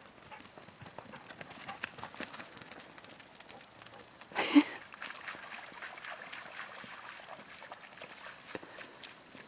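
Footsteps and dogs' paws crunching over dry leaves and trail grit, with a short loud thump about halfway through.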